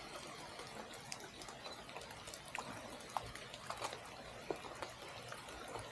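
Faint water ambience: light rain, with scattered small drip ticks over a steady hiss.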